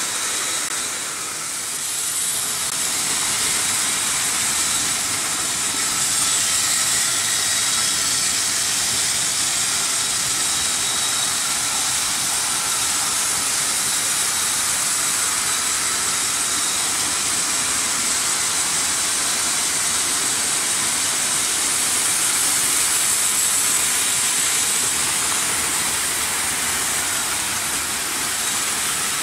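Several Märklin H0 model trains running at once on stamped-steel M-track. A steady rushing hiss of metal wheels on metal rails, with a faint whine from the AC motors.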